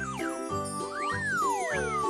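Bouncy children's background music with a regular bass pulse, overlaid by cartoon sound effects: several quick sliding whistle-like tones. The longest falls in pitch for most of a second, starting about halfway through.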